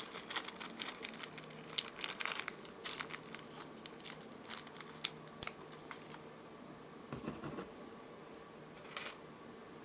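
Rustling and light clicking of small jewelry findings and packaging being handled while a crimp bead is picked out, busiest in the first half and thinning out to a few isolated ticks.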